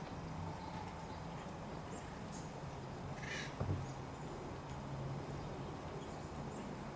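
Faint background with a steady low hum, a short animal call about three seconds in, and a soft knock just after it.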